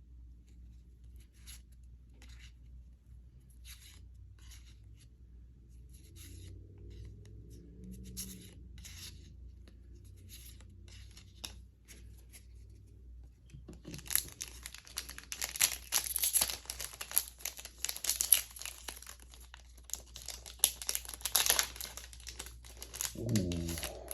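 Foil booster-pack wrapper of a trading-card pack being torn open and crinkled, a dense crackling that starts about halfway through and lasts around nine seconds. Before that come faint scattered taps and clicks of handling.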